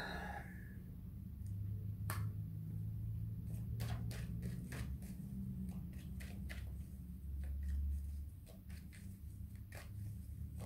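A tarot deck being shuffled by hand, the cards flicking and slapping against each other in irregular quick clicks, over a low steady hum.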